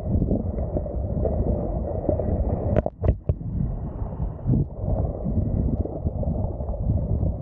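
Wind buffeting the microphone with a low, uneven rumble, over water splashing and sloshing against a wingfoil board on choppy water. Three sharp clicks or knocks come close together about three seconds in.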